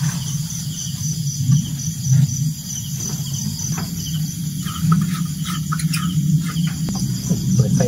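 Night chorus of crickets and other insects, a steady high pulsing trill, over a loud, wavering low hum. A few short clicks come around the middle.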